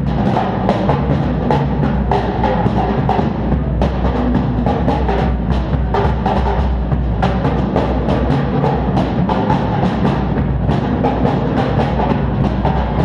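Drum kit being played continuously, with dense rapid strikes over a steady low ring from the drums, recorded through a GoPro HERO3 Black Edition camera's built-in microphone.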